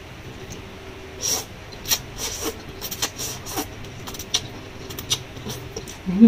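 A person slurping and chewing a mouthful of instant soup noodles: irregular wet mouth clicks and smacks. Near the end comes a brief rising hum from the throat, the loudest sound.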